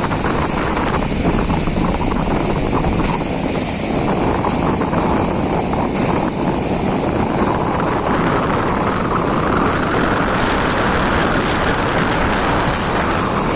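Strong wind buffeting the microphone over crashing waves, a loud and steady rush that swells about halfway through.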